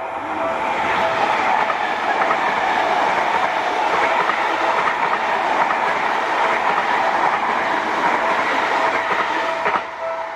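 A train running past with the clatter of its wheels over the rail joints, loud and continuous for about nine and a half seconds before cutting off near the end. Near the end the notes of a town's evening chime melody come back through.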